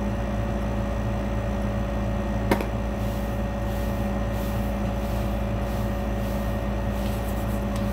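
Steady mechanical hum of a running appliance, a low drone with a few constant tones above it, and one sharp click about two and a half seconds in.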